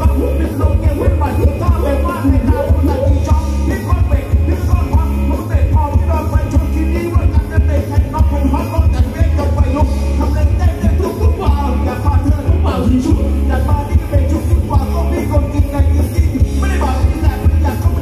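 Loud amplified live band playing Thai ramwong dance music through a PA, driven by a heavy, pulsing bass beat under the melody.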